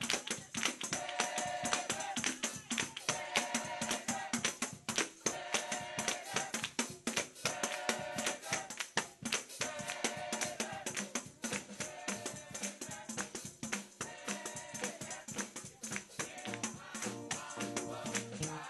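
Up-tempo church music: rapid, dense percussion hits with a short melodic phrase repeating about every two seconds.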